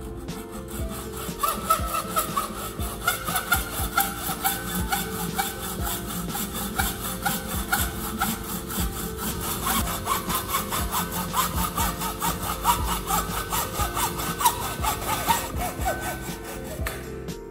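Hand saw cutting with rapid, even back-and-forth strokes, with a squeaky scrape on the strokes; the sawing stops near the end.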